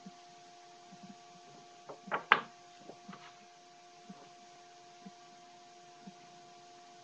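Steady electrical hum with soft ticks about once a second, and a short cluster of sharp knocks about two seconds in.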